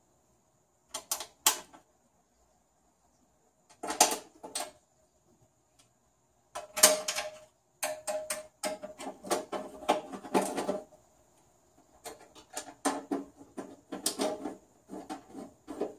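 Sheet-metal clicks, taps and scrapes as the stainless-steel top cover of a Rancilio Silvia espresso machine is fitted to its frame and its screws are set and turned with a screwdriver. The sounds come in irregular bursts, a few short ones near the start and denser runs through the middle and near the end, with a faint metallic ring.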